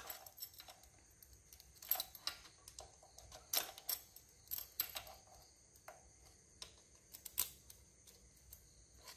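Small, irregular metal clicks and taps from a motorcycle cam sprocket and timing chain being worked into place with pliers while the cam timing is set.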